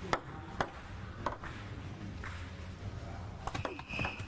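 Table tennis ball ticking a few times at irregular intervals, with a short high squeak near the end.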